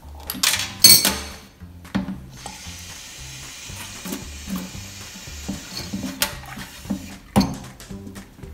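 Kitchen tap running water into a drinking glass, a steady hiss, with glass knocks and clatter in the first second and a sharp knock about seven seconds in. Soft background music with a beat underneath.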